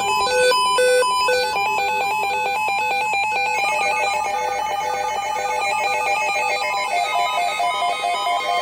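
Electronic melody made of rapid, short beeping tones at several pitches, growing denser about three and a half seconds in.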